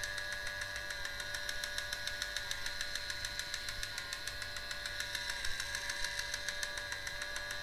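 A motion-activated dummy security camera's small geared motor panning the camera body back and forth: a steady whine with fast, even ticking.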